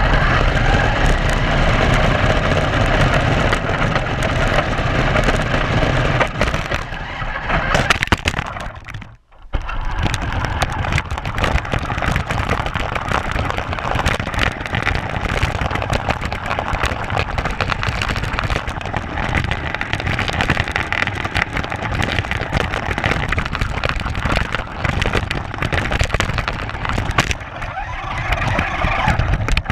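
Camera-mounted RC car driving over rough ground and pavement: a loud, dense crackling rattle from its wheels and body, cutting out for a moment about nine seconds in. A faint whine rises and falls near the end.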